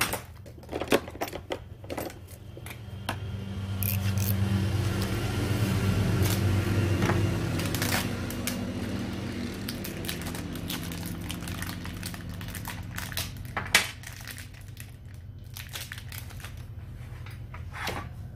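Sharp metallic clicks and clinks of small clutch parts and tools being handled at a brush cutter's engine, with some crinkling. A low humming rumble swells a few seconds in and fades away over about ten seconds.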